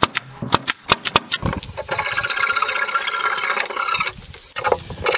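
Pneumatic brad nailer firing a quick run of sharp shots into pine trim. About a second and a half in, a steady rasping rub takes over as a hand tool is worked along the wood.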